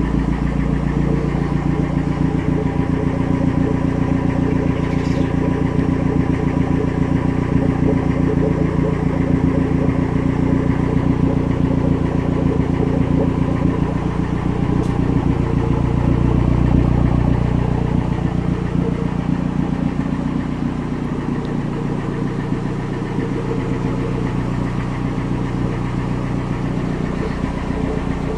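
Turbocharged Toyota 3S-GE four-cylinder engine in an Altezza idling steadily, its note swelling a little about halfway through and then settling lower. The owner says it is making strange noises.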